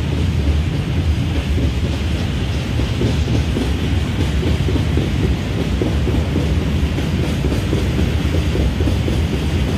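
Freight train of open wagons running on the tracks below, a steady, loud, low-pitched train noise.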